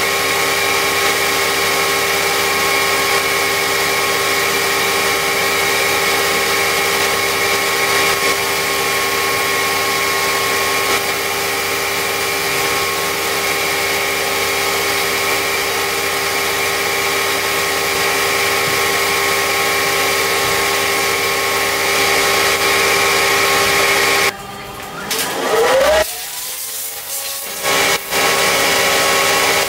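A steady mechanical drone of a running motor. Near the end it briefly drops away with a short rising whine, then resumes.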